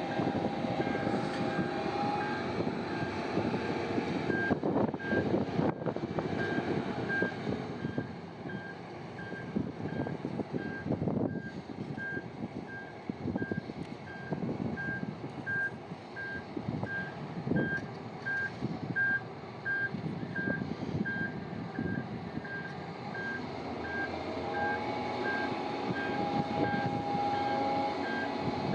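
Reversing alarm on heavy mining machinery beeping at an even, steady rate over the running noise of its diesel engine, with a whine in the first couple of seconds and again near the end.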